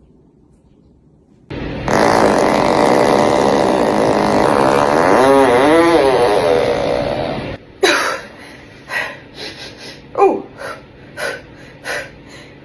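A long fart lasting about six seconds, with a wavering pitch partway through, that cuts off suddenly. It is followed by a run of short, separate bursts.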